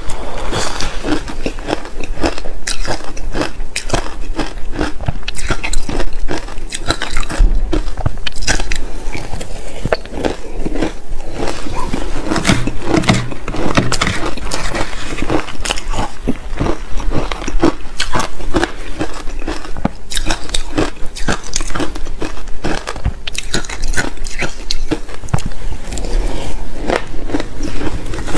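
Soft powdery ice being bitten and chewed close to a lapel microphone: a dense, continuous run of crisp crunches and crackles.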